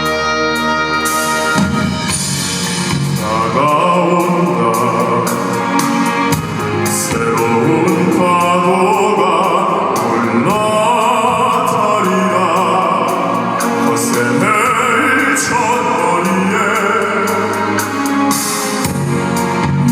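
Live classical-crossover vocal performance: operatic voices singing with wide vibrato over a band and orchestral accompaniment with drums. The voices come in a few seconds in, after a sustained instrumental opening.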